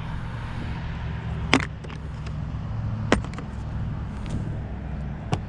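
Hand tools clinking while a socket set is rummaged for a size-7 socket: three sharp metallic clicks, about a second and a half apart, over a steady low rumble.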